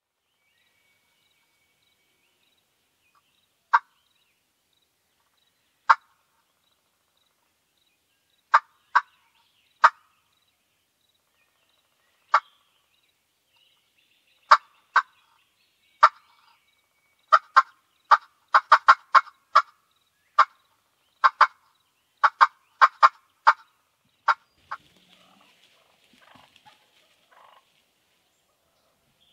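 Wild turkeys clucking: short, sharp single notes, spaced out at first and then coming quickly one after another for several seconds. Faint rustling follows near the end.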